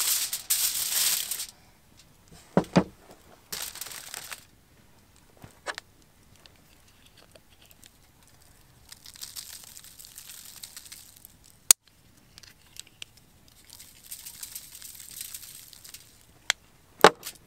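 Aluminium foil crinkling and tearing loudly for about the first second and a half, then a thump and a brief rustle of the sheet. Later come two quieter spells of a hand pepper mill grinding, a few seconds apart, with several sharp clicks between.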